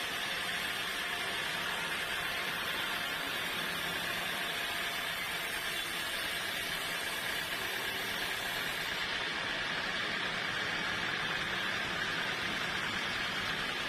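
Sawmill machinery running steadily, a continuous even hiss with no distinct strokes or changes.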